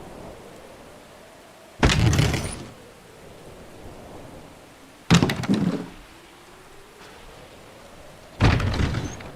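Three separate door sounds, each a sudden loud hit that dies away within about a second, coming roughly three seconds apart. A faint watermark sound runs under them.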